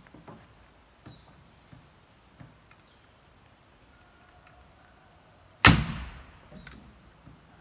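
Pneumatic framing nailer firing once about two-thirds of the way in: a sharp, loud crack as a nail is driven into a wooden roof rafter. Before it come a few light knocks and taps.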